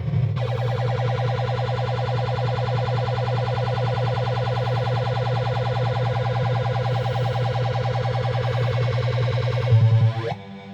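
Williams Flash pinball machine's sound board putting out a steady siren-like electronic tone with a rough edge, the sound fault in question. Near the end it jumps louder and drops in a short falling glide before changing to a different tone.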